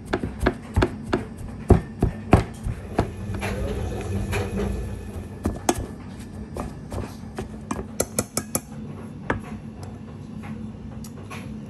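A utensil knocking and scraping against a stainless steel bowl while mashing flaked salt cod, in sharp irregular knocks that are loudest in the first few seconds. Later, a metal spoon clinks and scrapes a steel saucepan as garlic and oil are tipped into the bowl.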